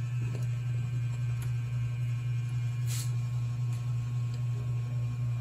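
Steady low hum, with a single light click about three seconds in.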